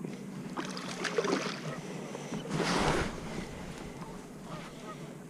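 Ambient sound aboard a fishing boat on a river: a steady low hum with water and wind noise, swelling briefly about three seconds in.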